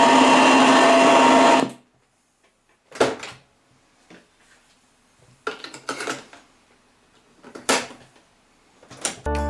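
A Sharp GF-6060H radio-cassette recorder gives out a loud, noisy hiss that cuts off suddenly about two seconds in. Then come several separate sharp mechanical clicks, spaced out over the next seven seconds, and music starts right at the end.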